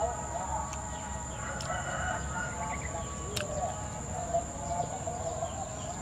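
A rooster crowing and chickens clucking, over a steady high-pitched whine, with a few sharp clicks.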